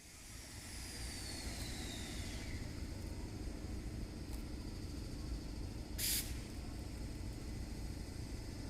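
A steady low rumble with faint falling whines over the first two seconds, and a short, sharp hiss about six seconds in.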